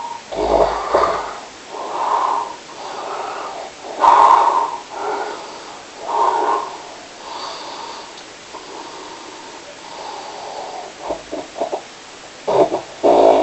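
Snoring: short noisy snores coming about once a second, uneven in strength, with a quick run of very short ones late on and two louder ones at the end.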